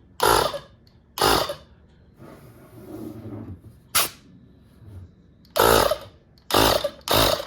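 Short loud bursts of air from the Inco 20 V cordless compressor's nozzle as a finger blocks and releases the outlet, about six in all, each a fraction of a second, with one sharp click near the middle.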